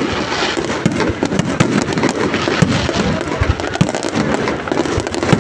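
Fireworks display going off in a dense, continuous barrage of rapid bangs and crackles.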